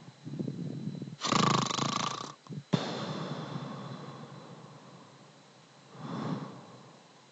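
Someone snoring in their sleep: one loud snore about a second in, ending in a short snort, then a long fading breath and a softer snore near the end.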